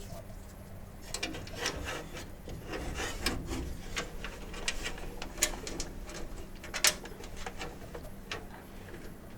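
Scattered light clicks and scraping as a bill changer's hopper assembly and a hex screw are handled and fitted into place, with a sharper click about seven seconds in.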